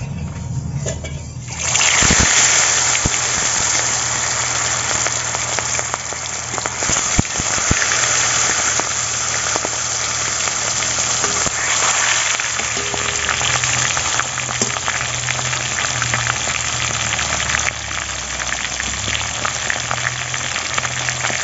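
Pangas fish steaks frying in hot oil in a wok, a loud, steady sizzle with scattered small crackles and spatters. It sets in about two seconds in, after a quieter start.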